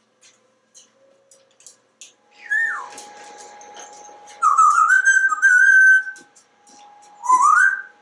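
African grey parrot whistling: a falling whistle, then a longer warbling whistle that climbs in steps, and a short rising whistle near the end, after a few faint clicks.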